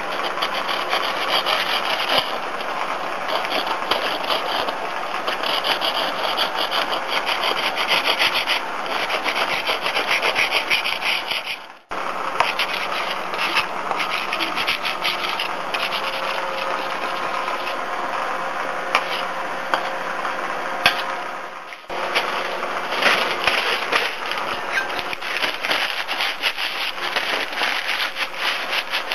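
Baked refractory clay being scraped and rubbed off a quenched steel knife blade: continuous rapid scratching strokes, with clay crumbs falling onto newspaper. The sound cuts off abruptly twice and starts again.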